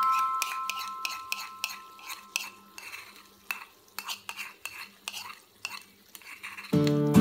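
A metal spoon scrapes and taps against the inside of a small bowl, a quick irregular run of clicks, as thick sauce is scraped out into a wok. A chime-like music note fades out at the start, and guitar music comes in loudly near the end.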